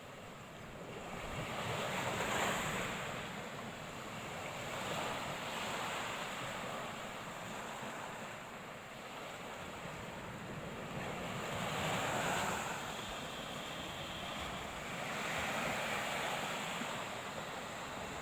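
Surf breaking on a shoreline: waves wash in and fall back, the hiss swelling about four times.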